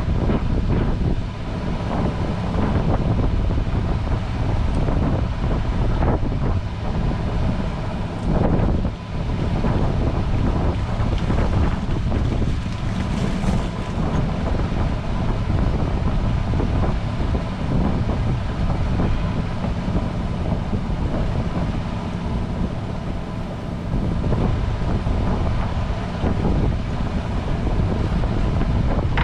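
Wind buffeting the microphone aboard a boat at sea, with a faint steady hum underneath.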